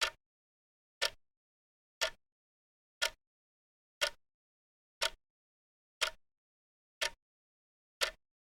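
Clock ticking, one sharp tick per second, evenly spaced, with dead silence between the ticks.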